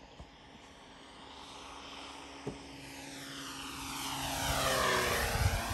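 A radio-controlled FMS 1450 mm P-51 Mustang model plane flying past. Its propeller and motor sound grows steadily louder, peaks about five seconds in as it passes closest, then begins to fade.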